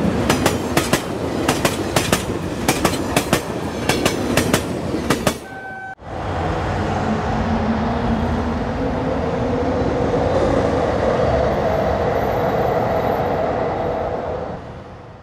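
Passenger train running on the rails: wheels clicking over rail joints for about five seconds. A brief tone follows, then the sound changes abruptly to a steady rumble with a humming drone that fades out near the end.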